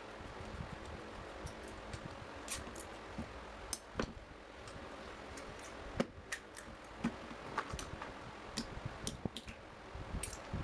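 Irregular light clicks and taps of small parts and hand tools being handled during work on an old electric fan, over a steady low hiss.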